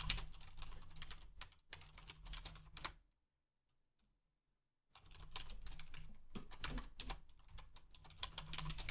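Computer keyboard typing, a fast run of light key clicks. About three seconds in, the sound drops out completely for nearly two seconds, then the typing picks up again.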